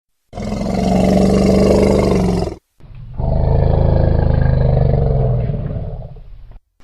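Elephant giving two long, low roars, the first about two seconds long, the second longer and fading out at its end.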